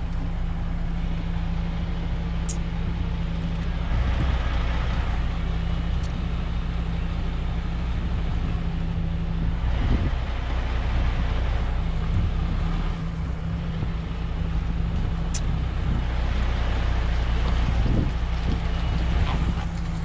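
Lorry's diesel engine running at low revs, heard from inside the cab as the truck is manoeuvred, its level swelling a little a few times. Two brief sharp clicks stand out, one early and one about three-quarters of the way through.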